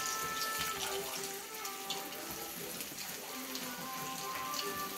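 Oil sizzling and crackling in a frying pan as bread turon fries, with music of held notes playing in the background.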